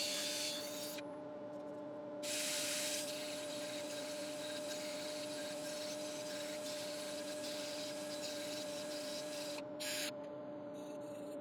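Wood lathe running with a steady hum while abrasive paper is held against the spinning Iroko bowl, a sanding hiss that swells at the start, about two seconds in and briefly near the end.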